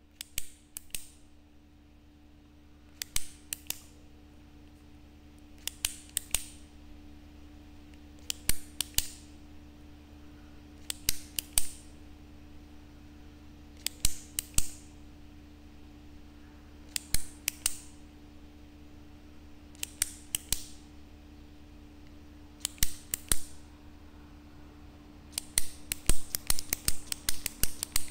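Retractable ballpoint pen's push button clicking in short clusters of a few clicks, about every three seconds. Near the end it clicks rapidly, several times a second. A faint steady hum runs underneath.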